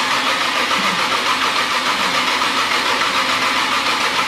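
Chevrolet 454 big-block V8 turning over on its starter motor for the first time, cranking steadily with an even pulsing and not firing: the engine is only being spun over and is not yet set up to run.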